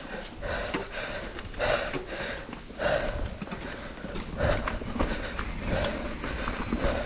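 A mountain biker breathing hard, a heavy breath about every second, over the steady rumble of tyres on a dirt trail and the sharp clicks and rattles of the bike.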